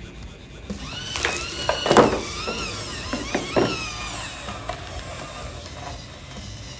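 High-torque metal-gear RC servos whining as they turn and bend a foam model hand, the pitch rising and falling in short sweeps, mostly in the first half, with a sharp knock about two seconds in.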